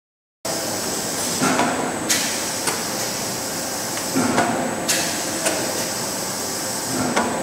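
Soap stamping machine line running: a steady machine hum with a high whine, broken by repeating mechanical knocks in groups of three about half a second apart, the groups coming roughly every three seconds.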